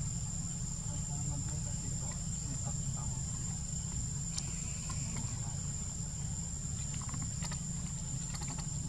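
A steady high-pitched drone of insects (cicadas or crickets) over a low, even rumble, with a few faint clicks and rustles.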